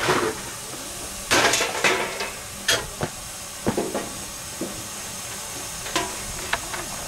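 Small-scale steam locomotive being fired up: a steady steam hiss with irregular sharp metallic clanks and scrapes from work in its cab. The loudest clanks come in a cluster about a second and a half in.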